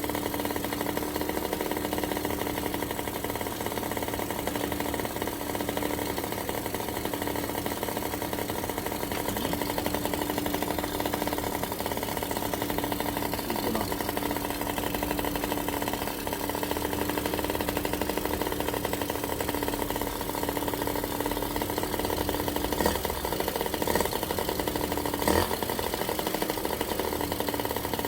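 Yamaha Jog Poche 3KJ scooter's small two-stroke engine idling steadily after a carburettor overhaul. A few short knocks come near the end.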